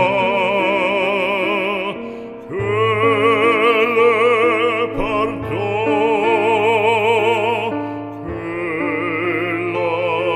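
Background music: an operatic voice singing long held notes with a wide vibrato over a sustained accompaniment, the phrases pausing briefly about two seconds in and again near eight seconds.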